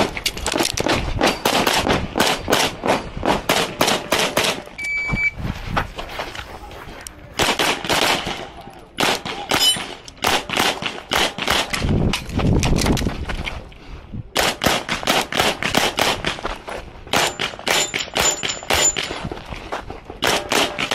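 Beretta 92X Performance 9mm pistol firing rapidly in quick strings of shots, mostly in fast pairs, with a few short pauses between strings.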